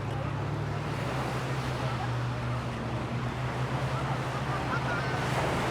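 Seaside walking ambience: a steady wash of wind and surf-like noise under a low, steady droning hum, with faint distant voices near the end.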